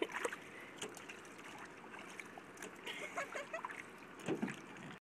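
Swimming-pool water splashing and dripping around a wet tennis ball being handled and thrown, with scattered small clicks and knocks; the sound cuts out abruptly just before the end.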